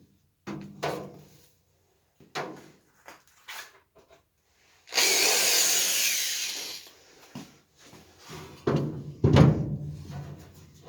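Woodworking on a seat frame: scattered knocks and handling of wood, a loud power-tool burst lasting about two seconds about halfway through, then heavier knocks near the end.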